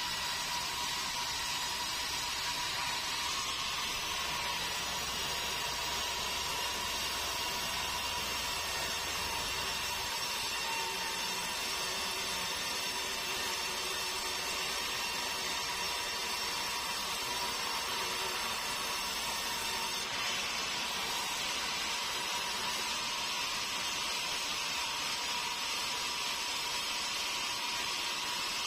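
Large band sawmill running steadily as its blade cuts lengthwise through a meranti log, a continuous hiss with a thin steady whine.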